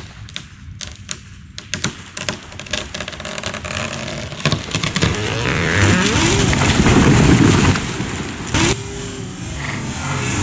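A tree being pulled over on a rope: sharp cracks as the hinge wood gives, then a louder mix of straining, creaking wood and an engine running underneath, building as the trunk leans over, with a sharp snap near the end.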